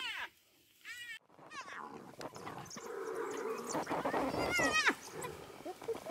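African wild dogs and spotted hyenas calling as they clash: high, falling squeals come at the start, about a second in, and again near the five-second mark, with a rougher, noisier stretch in the middle.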